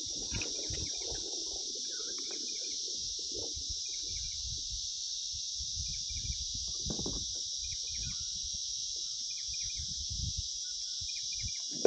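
Steady, high-pitched insect chorus droning without a break, with short bird chirps repeating over it and irregular low bumps underneath.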